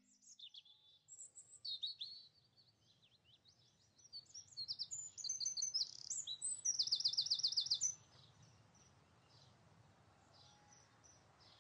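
Songbirds chirping and twittering in short high calls, busiest in the middle, with a rapid trill of about eight notes a second near seven seconds in; the birdsong stops about eight seconds in.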